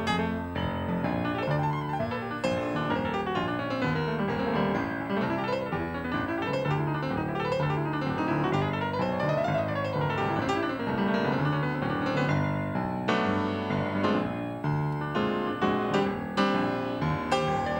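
Solo upright piano playing a jazz standard, with fast runs sweeping up and down the keyboard in the middle.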